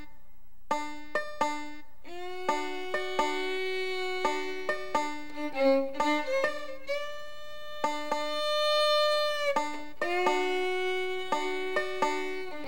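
Background old-time string music: a banjo picking quick plucked notes, with a fiddle holding long notes over it through the middle.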